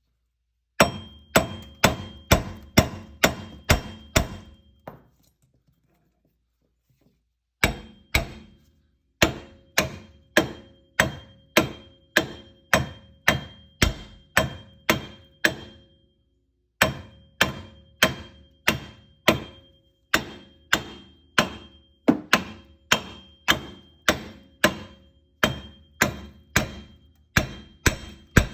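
Hammer blows on a stuck wheel bearing hub, about two to three a second, each with a metallic ring, in three long runs broken by a pause about five seconds in and a brief one near the middle: the hub is seized in place and being knocked loose.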